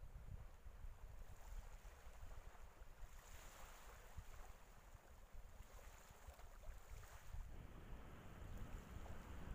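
Faint, uneven wind rumble on the microphone over the low wash of harbour water.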